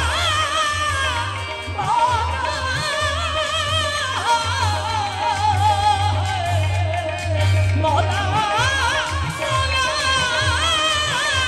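Live qawwali: a lead voice sings long wavering lines over the party's accompaniment, with new phrases starting about two seconds in and again about eight seconds in.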